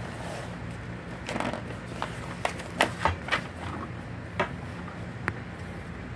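Glossy magazine pages being turned by hand: a soft rustle, then a run of sharp paper crackles and snaps as the page flips over, over a steady low background hum.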